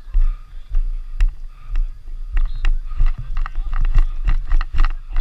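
Rumble of wind and movement on a helmet-mounted action camera during play, with a quick run of sharp clacks and knocks in the second half.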